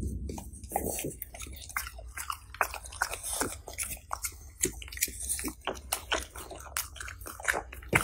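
French bulldog chewing a blueberry: a fast, irregular run of chewing clicks, several a second.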